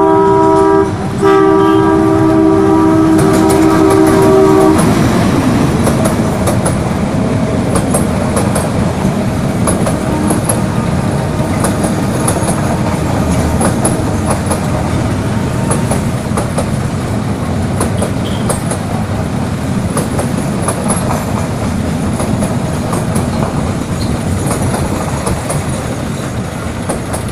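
Meter-gauge passenger train passing at a level crossing. The locomotive's horn sounds a long multi-tone blast with a short break about a second in, and stops about five seconds in. The coaches then roll past with a steady rumble and their wheels clicking over the rail joints, slowly fading toward the end.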